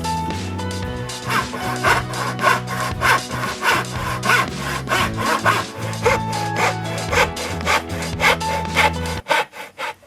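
Sandpaper rubbed back and forth by hand on painted pine, scraping strokes about two a second to knock the white coat back through the black. Background music plays under it and stops about nine seconds in.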